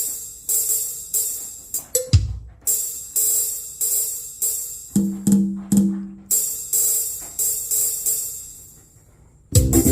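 Arranger keyboard's programmed cumbia drum pattern playing back, offbeat hi-hat and cymbal strikes about twice a second with the hi-hat just turned down to about 65, a kick thump about two seconds in and two deeper drum hits around five seconds. It dies away near nine seconds, then the full accompaniment with bass and keyboard comes in just before the end.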